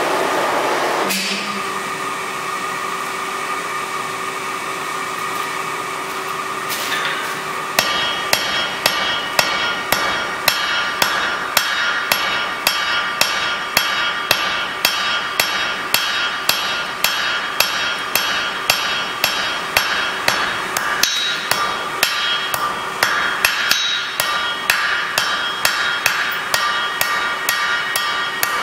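Blacksmith's hammer striking hot steel held in tongs on an anvil: a steady run of blows, about two to three a second, each ringing off the anvil, flattening the glowing end into a leaf shape. The blows start about eight seconds in. Before that there is a steady rushing noise broken by a couple of single clanks.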